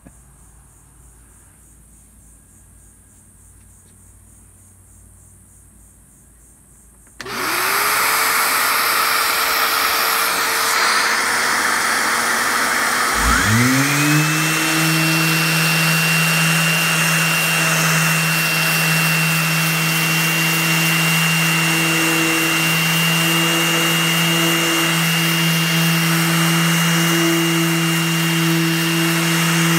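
After a quiet start, a dust-collection vacuum switches on about seven seconds in and runs with a steady hiss. A few seconds later a DeWALT random orbital sander with a 120-grit disc spins up with a rising whine and then runs steadily, sanding dried Rust-Oleum paint on a boat hull.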